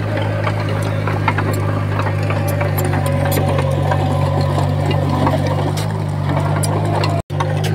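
Heavy earthmoving machine's diesel engine running steadily under load, with many short metallic clicks and clanks over the hum. The sound cuts out for an instant near the end.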